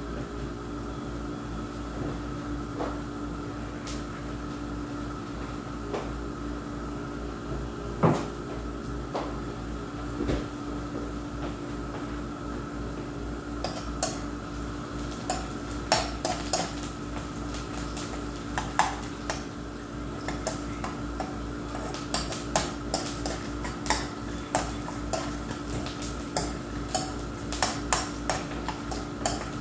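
Metal spatula scraping and clinking against a wok as the food in it is stirred, a rapid irregular run of strokes from about halfway on, over a steady low hum. A few isolated knocks come earlier.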